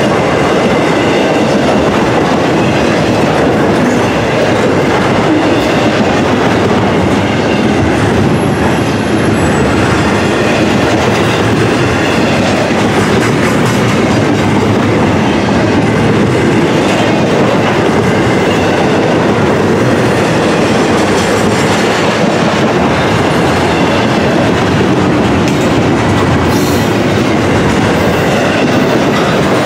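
Double-stack intermodal container cars rolling past close by: a steady, loud din of steel wheels running on the rails.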